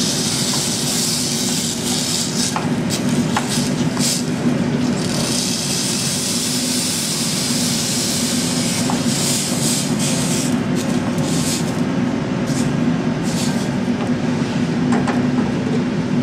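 Vegetable stock poured from a plastic container into a saucepan of cooked vegetables, splashing and hissing in two spells, with a few light knocks of container and utensils against the pot. A steady low hum of the kitchen runs underneath.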